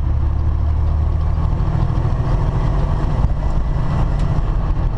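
Steady drone of a semi truck's diesel engine and tyre and road noise, heard from inside the cab while cruising at highway speed with an empty trailer.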